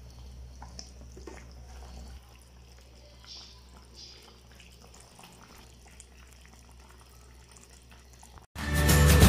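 Faint simmering of chicken adobo sauce in a pan, with a steady low hum and a few light ticks. Music starts suddenly near the end.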